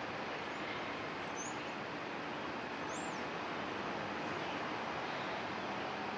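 Steady outdoor background hiss, with two faint, short high bird chirps, one about a second and a half in and one about three seconds in.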